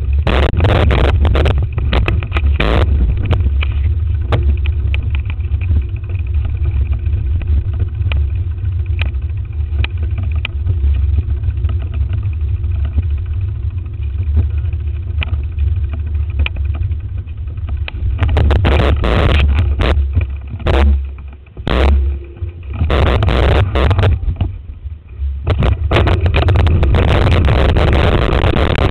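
Heavy wind buffeting and road rumble on the microphone of a handlebar-mounted camera on a moving ride, with scattered clatters. The noise drops away briefly a few times about three-quarters of the way through.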